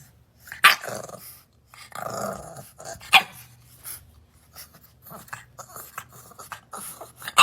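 Bulldog puppy growling in several short bursts, the strongest about a second and about three seconds in, with small clicks in between.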